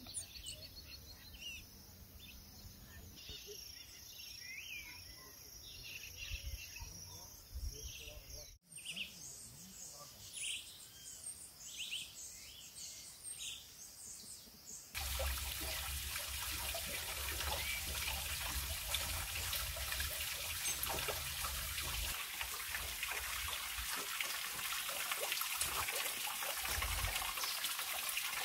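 Birds chirping and calling on and off. About halfway through it gives way to the steady splash and trickle of a small waterfall falling into a rocky pool.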